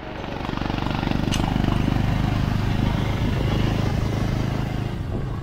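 Motorcycle engine running under way, building up over the first second or so and then holding steady. A single sharp tick comes just over a second in.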